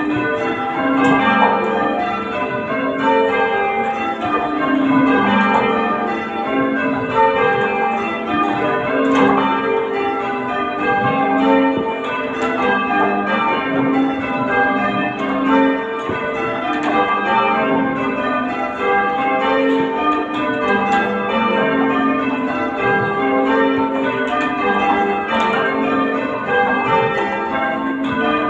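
Church tower bells in change ringing: a continuous, even stream of bell strokes, the bells sounding one after another in constantly shifting order.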